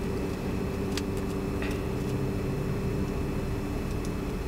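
Steady low mechanical hum with a few constant tones in it, and two faint clicks about a second and a second and a half in.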